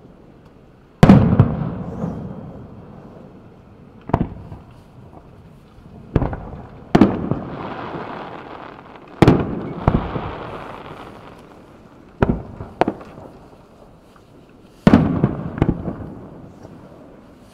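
Aerial firework shells bursting one after another: about a dozen sharp booms, each trailing off in a rolling echo, the loudest about a second in. A hiss runs under the bursts around the middle.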